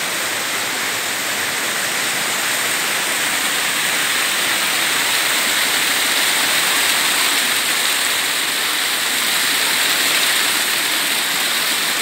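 Stream water rushing over rock slabs in a shallow cascade: a steady rush that grows a little louder through the middle.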